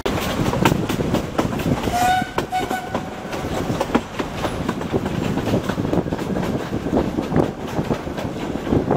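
Steam train running, its coaches knocking and rattling over the rail joints, with a short steam whistle in two brief notes about two seconds in.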